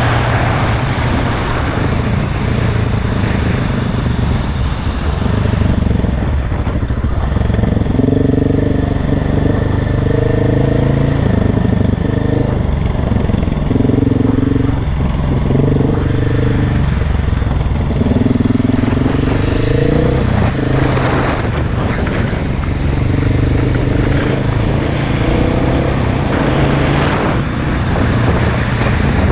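KTM enduro dirt bike engine revving hard off-road, its note climbing and dropping again and again with throttle and gear changes.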